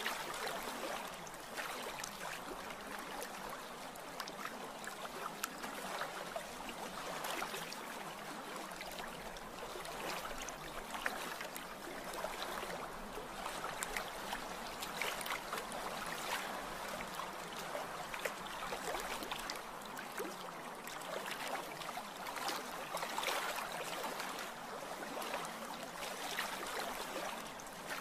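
Recorded water ambience: continuous lapping and trickling water with many small splashes, thin, with almost no low rumble.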